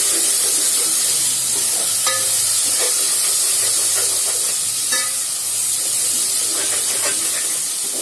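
Sliced onion frying in hot oil with tempering spices, a steady sizzle, while a metal spoon stirs and scrapes, clinking against the metal pot several times.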